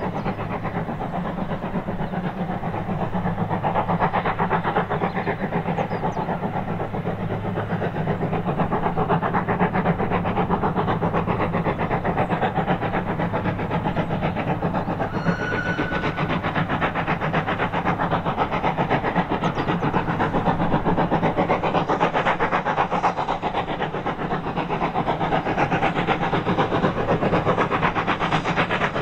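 GWR 57xx-class pannier tank steam locomotive No. 7714 working hard, its exhaust beating in a fast, steady rhythm, with a brief high note about halfway through.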